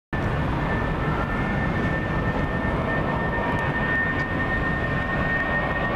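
Airbus A319 jet engines running at takeoff power, heard from afar: a steady rumble with a constant high whine over it.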